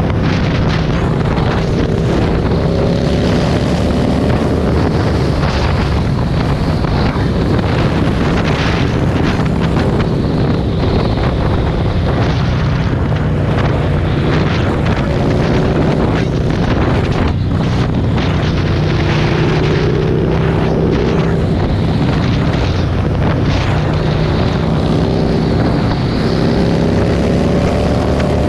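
Motorcycle engine running at highway cruising speed under heavy wind noise on the microphone, a steady low drone whose pitch rises and falls gently a few times.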